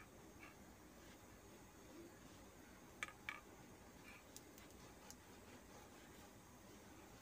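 Near silence with a few faint light clicks, two close together about three seconds in, from a silicone basting brush dabbing oil onto a dosa on a non-stick pan.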